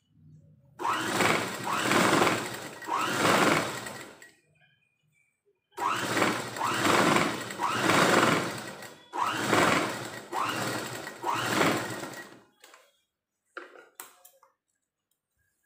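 Motorised domestic sewing machine stitching a folded sleeve hem in three runs of a few seconds each, its speed swelling and easing several times within each run. A few light clicks follow near the end.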